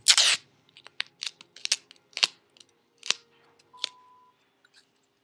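Handling noise from rolls of duct tape held close to the microphone: a loud brushing rustle at the start, then a string of irregular sharp clicks and taps over the next few seconds.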